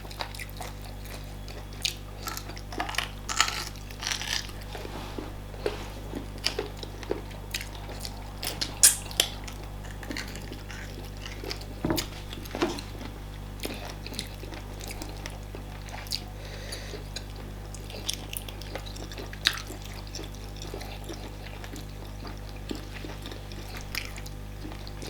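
Close-miked eating sounds: scattered wet smacks, squelches and clicks of chewing fufu, banga soup and meat, over a steady low hum.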